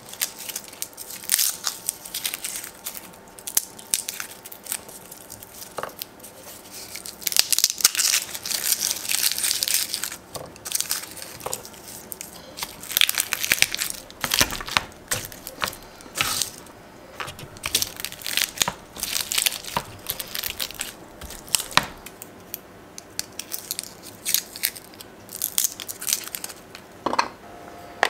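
Garlic bulbs broken apart and the cloves peeled by hand on a wooden cutting board: dry papery skins crackling and tearing, with many sharp clicks and knocks on the board throughout.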